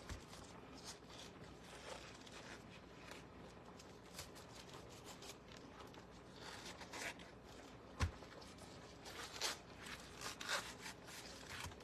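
Kitchen knife cutting and scraping through thawed cabbage leaves, with the leaves rustling in short, irregular strokes. There is a single sharp knock about eight seconds in.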